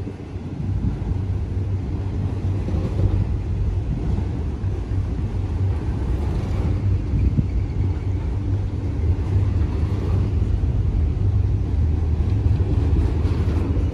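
Steady low rumble of a moving vehicle.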